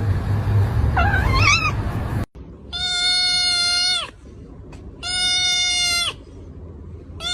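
A cat meows once, its pitch bending up and down, over a low rumble. After a sudden cut, an animal gives long, level-pitched calls that drop in pitch at the end, each about a second and a half long, repeating about every two seconds.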